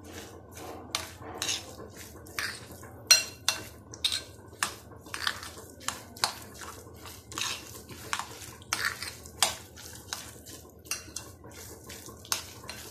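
Metal fork stirring and mashing a thick boiled-egg and mayonnaise mixture in a glass bowl, clinking and scraping against the glass in an irregular run of sharp ticks, about one or two a second, with the loudest clink about three seconds in.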